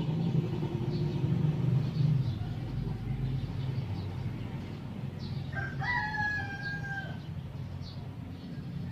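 A rooster crows once, about five and a half seconds in: a short rise, then one long held note. Under it runs a steady low hum, loudest in the first couple of seconds.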